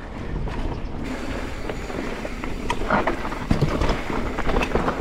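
Mountain bike rolling along a sandy, stony dirt singletrack: a steady rumble of tyres on the ground, with scattered knocks and rattles from the bike over stones and wind on the microphone.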